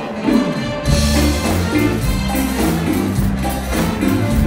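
Latin-funk-rock band playing live. Drums lead, then the full band with bass line and cymbals comes in about a second in.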